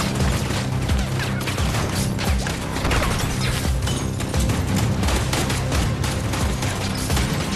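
Rapid, sustained gunfire from a film's action soundtrack, many shots in quick succession, over a low steady music score.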